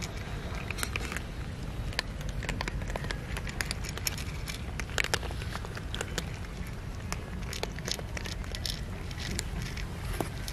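Several cats crunching dry kibble from a metal tray: many quick, irregular crunches and clicks, over a steady low rumble.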